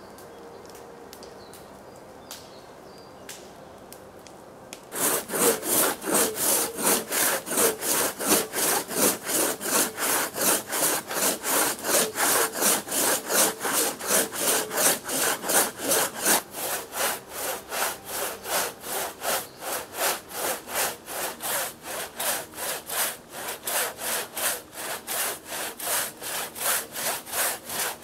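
Long-bladed hand saw cutting through a fallen log in steady back-and-forth strokes, about two a second, with a dry rasp on each stroke. The sawing starts about five seconds in, after a quiet forest background.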